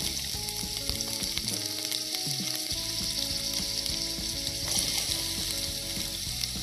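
Sliced onions sizzling in hot oil in a pan, a steady frying hiss.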